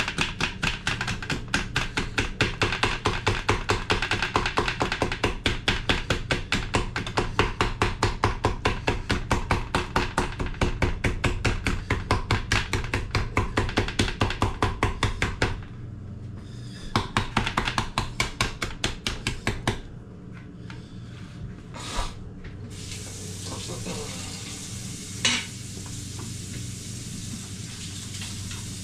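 Knife chopping quickly on a cutting board, about four or five strokes a second, over a steady low hum. The chopping pauses about halfway through, resumes for a few seconds, then stops, leaving a faint hiss and two single knocks.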